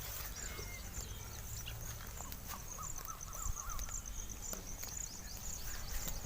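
Outdoor farm ambience: a steady, rapid, high-pitched chirping with a short wavering call about three seconds in, over a low rumble.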